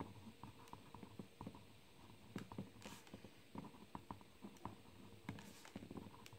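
Pen writing on paper: faint scratching and small ticks from the pen strokes, with a couple of slightly louder scratches.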